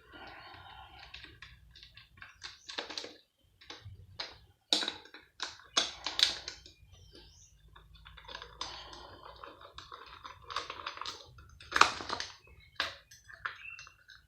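Irregular clinks, taps and scrapes of hand tools and metal parts being handled as a pump is taken apart by hand, with a sharp knock about 12 seconds in.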